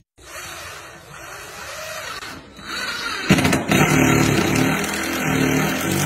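Cordless drill driving into a wooden subfloor, its motor whining in spurts that rise and fall in pitch as the trigger is worked, much louder from about three seconds in.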